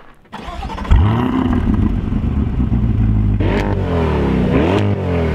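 Corvette E-Ray's 6.2-litre V8 starting with a flare of revs about a second in, then settling to a steady fast idle. It is revved twice near the end, loud through the quad exhaust.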